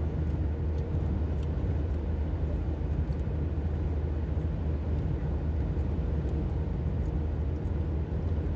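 Steady low hum of a running car's engine and road noise, heard from inside the cabin.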